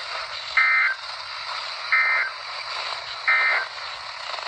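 Three short bursts of EAS/SAME digital data tones, the end-of-message signal that closes a NOAA Weather Radio alert, evenly spaced about a second and a half apart, over steady radio static hiss.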